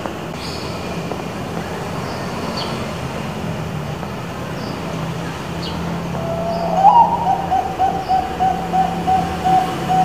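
Bangkok-strain zebra dove (perkutut) singing: about six seconds in, a rising opening note, then a quick run of short staccato coos, about four a second. A steady low hum lies underneath.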